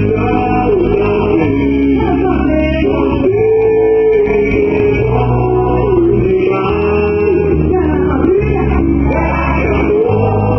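Loud festa junina song playing for a quadrilha dance: a singing voice holding and bending notes over a steady bass line and band accompaniment.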